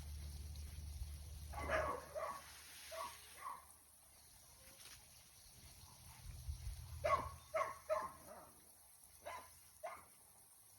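A dog barking: two bouts of short barks, about four in the first and six in the second.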